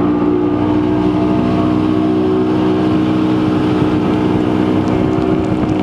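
Bass boat's outboard motor running steadily under way, over a continuous rush of noise.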